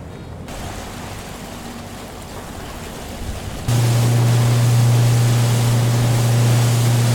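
Wind and water on the microphone, then, about three and a half seconds in, a boat's horn starts suddenly with one long, steady low blast that holds to the end.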